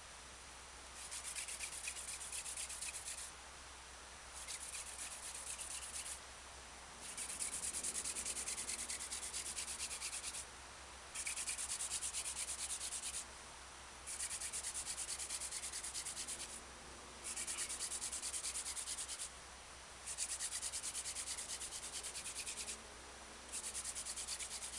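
Wooden hand-drill spindle spun back and forth between the palms in a fireboard socket, wood rubbing on wood. It comes in about eight bouts of two to three seconds with brief pauses between. This is the socket being worked deeper and wider before the notch is cut.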